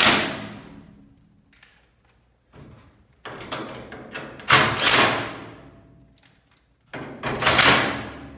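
Three loud bursts of clattering and sliding from steel garage door hardware being handled. The first comes at the start, the second about halfway through and the third near the end, each fading out over about a second.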